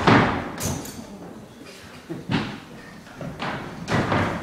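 Feet thudding on the floor and on wooden vaulting boxes as boys run, vault and land, several separate thumps with the loudest at the start.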